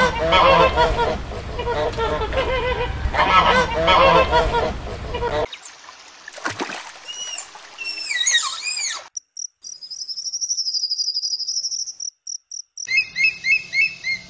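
Female mallard quacking in a loud, rapid series for about five seconds. Then high squeaky whistles rising and falling, as a Malayan tapir makes, followed by a steady high whine for about four seconds. Near the end comes a quick series of short high yelps from an eagle.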